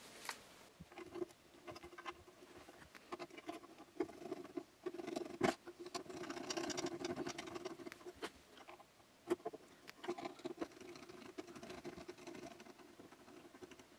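Faint, scattered clicks and scratching of small screws being fitted and turned by hand into 3D-printed plastic blocks.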